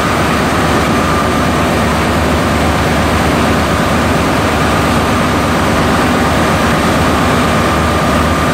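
Air-conditioning refrigeration compressor running: loud, steady machinery noise with a steady high tone in it.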